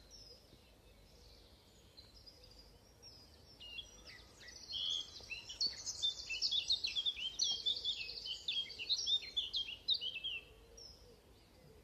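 Songbirds singing in a spring dawn chorus: faint distant song at first, then from about four seconds in one bird sings louder, a fast run of short high notes lasting about six seconds.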